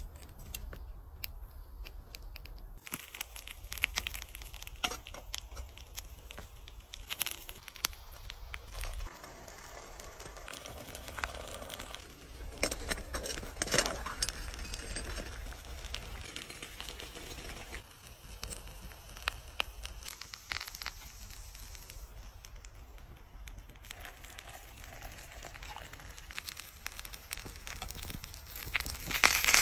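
Open flames of an improvised tin-can burner crackling and fluttering, with irregular sharp pops and crackles, a few louder clusters, and a low steady rumble underneath.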